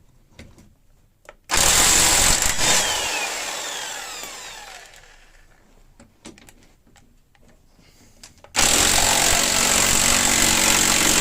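Impact wrench running in two bursts: the first about a second and a half in, loud briefly and then winding down with a falling whine over a few seconds; the second starting near the end and running steadily.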